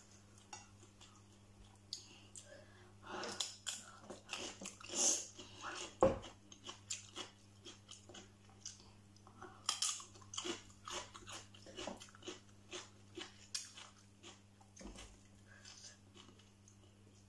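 Close-up eating sounds: crunchy bites and chewing of a fresh cucumber and stir-fried instant noodles, a string of short crisp crunches. A steady low electrical hum runs underneath.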